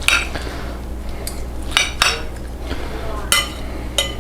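A metal utensil clinking against a plate of food, about half a dozen separate ringing clinks at irregular intervals.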